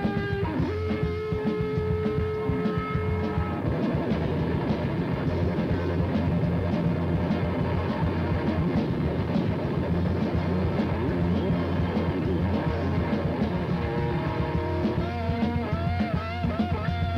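Live heavy metal band playing: distorted electric guitars over bass and drums. Held guitar notes ring in the first few seconds, and a guitar lead with bent, wavering notes comes in near the end.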